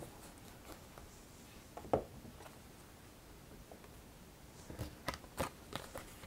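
Tarot cards being handled on a cloth-covered table: one light tap about two seconds in, then a quick run of soft clicks and taps near the end as the deck is set down. Quiet room tone in between.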